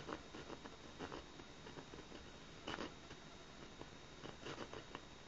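Victorinox Farmer Swiss Army knife's small saw blade cutting into oak, giving faint, uneven rasping strokes.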